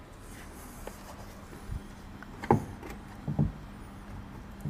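A few knocks and clunks as a replacement wing mirror is positioned and seated against the car door, the loudest about two and a half seconds in, over a faint steady hum.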